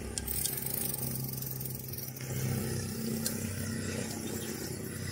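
Steady low hum of a motor vehicle engine running nearby, with a few faint clicks.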